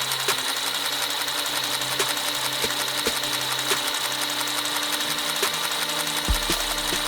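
A toy gun's rapid, steady mechanical rattle, like a small motor-driven mechanism firing continuously, with a thin high whine running through it.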